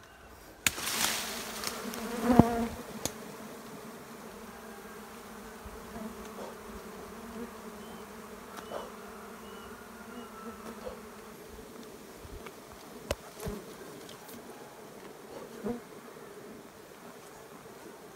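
Steady buzzing hum of a colony of Asian honeybees clustered on an open comb on a tree branch. A louder crackling burst with sharp snaps comes about a second in, and a few single clicks follow later.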